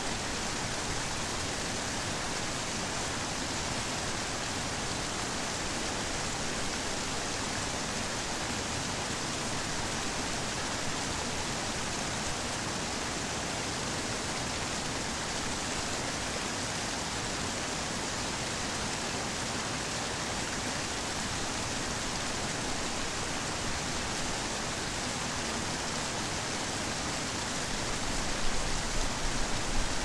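Creek water rushing steadily over small rock cascades and spilling into pools, a constant even rush. Near the end it grows briefly louder and uneven.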